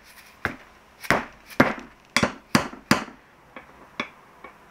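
Blue dead blow hammer striking a greased rubber bushing into a sway bar end link held in a bench vise: about seven firm blows at an uneven pace for three seconds, then three lighter taps as the bushing goes home.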